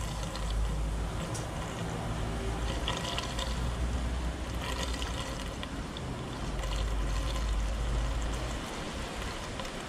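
Unleaded gasoline pouring from a plastic can through a plastic funnel into a portable generator's fuel tank, a steady trickle with a low rumble underneath.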